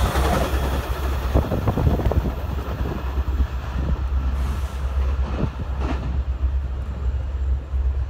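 Amtrak Pacific Surfliner passenger train rolling away over the track: wheels clicking over rail joints and a steady low rumble that slowly grows quieter as the train recedes.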